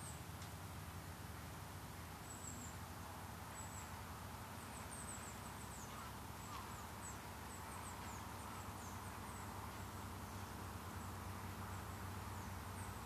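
Outdoor ambience of small birds giving many short, thin, high-pitched chirps scattered throughout, over a steady low rumble of wind.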